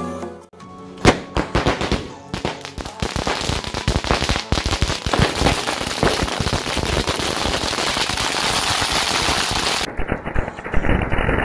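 A single sharp bang about a second in, then dense rapid crackling from many small Diwali popcorn crackers going off together in quick succession.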